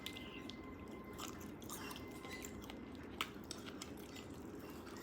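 A person chewing food with soft, wet mouth clicks and one sharper click about three seconds in.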